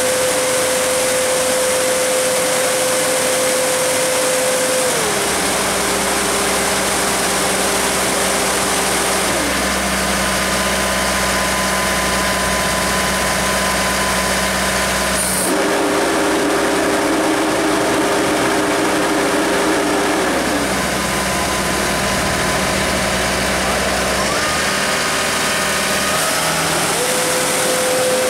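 LOVOL 130 combine harvester running steadily with its reversing cooling fan working. The hum steps down in pitch about five seconds in, shifts several times, and steps back up near the end as the fan switches between drawing air in and blowing it out.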